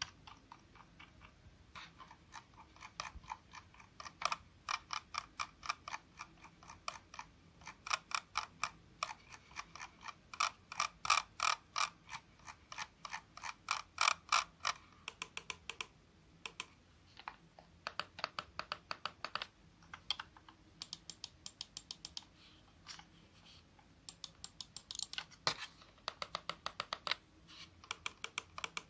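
Razer wireless gaming mouse buttons being clicked in rapid runs of several clicks a second, with short pauses between runs.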